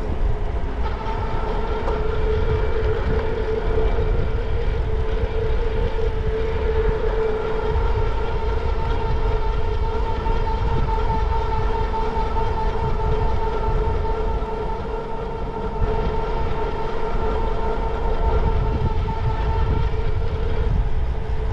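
Electric bike motor whining steadily at a constant pitch while riding, over a heavy low rumble of wind on the microphone.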